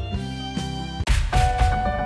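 A short stretch of music: held chords that change to a new, louder chord about a second in.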